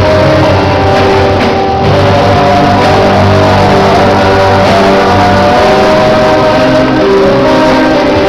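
Live band music with guitar, played loud and steady without a break.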